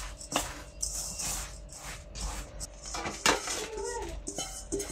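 Hands working damp, buttered biscuit crumbs in a stainless-steel bowl and tipping them into a metal springform pan: a run of soft scrapes and light metallic knocks.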